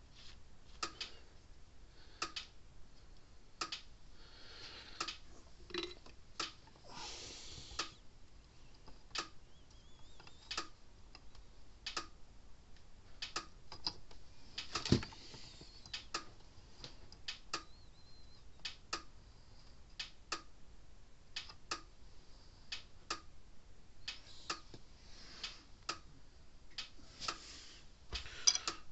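Light, irregular clicks and taps from hand tools and parts while a new capacitor is soldered onto a circuit board, with a few brief soft hisses.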